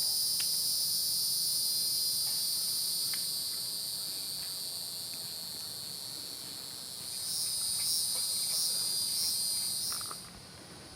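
Insects calling in a steady, high-pitched chorus. About seven seconds in, a pulsing call about twice a second joins it, and the chorus cuts off suddenly about a second before the end.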